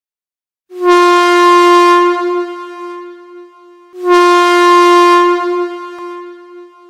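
Train air horn sounding two long blasts of about three seconds each, one steady pitch, each starting loud and tapering off.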